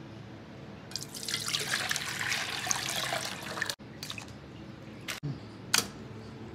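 Water poured into a steel saucepan for about three seconds, starting about a second in. A few short, sharp knocks and splashes follow near the end as instant noodles go into the pan.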